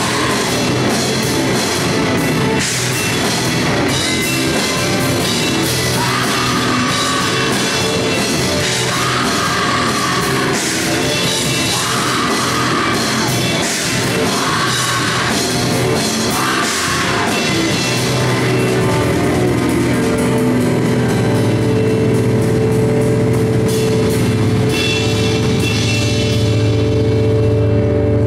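Live rock band on drum kit and electric guitars playing loud, with busy drums and cymbals. Past the midpoint the drums drop away and a held chord rings on, growing a little louder near the end.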